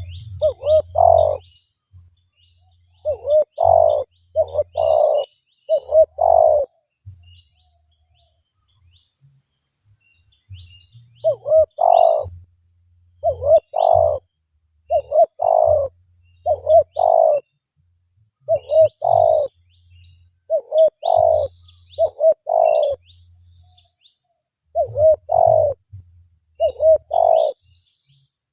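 Spotted doves cooing: series of deep, rounded coo notes in groups of three to six, with pauses between the groups. Small birds chirp faintly in the background.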